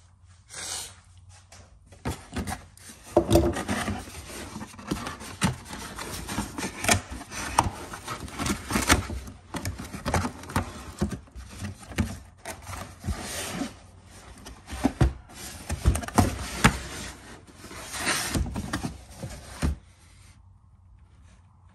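Corrugated cardboard shipping box being opened and handled: flaps pulled back and cardboard rubbing and scraping on cardboard and on a wooden countertop, with irregular knocks and clicks. It stops about twenty seconds in.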